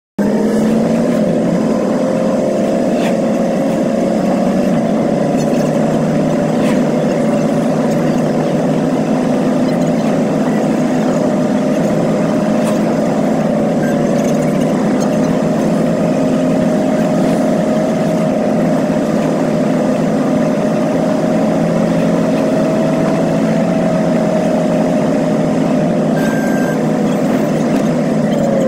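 Tractor engine running steadily, its note drifting slightly up and down.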